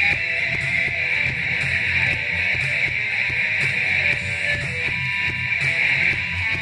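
Electric guitar played loud and heavy through an amplifier, a low riff picked in a fast, even rhythm that runs on without a break.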